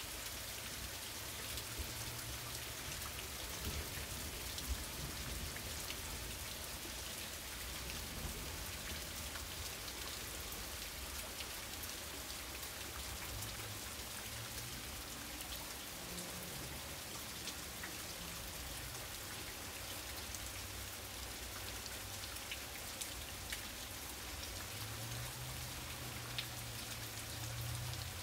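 Heavy rain falling steadily, with many individual drops hitting the ground. A low rumble builds near the end.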